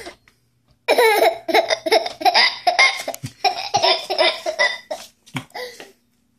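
Toddler laughing hard, a long run of belly laughs that starts about a second in and dies away near the end.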